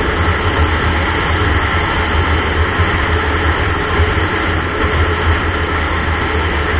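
Steady wind and road noise from a vehicle moving at highway speed, with a heavy low rumble under an even hiss.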